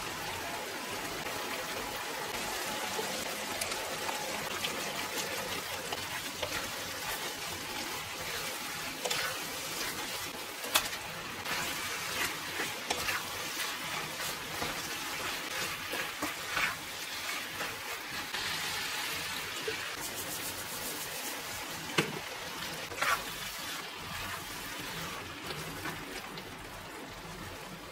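Squid and thin-sliced beef brisket sizzling in a frying pan while a wooden spatula stirs them, with a few sharp clicks and scrapes of the spatula against the pan.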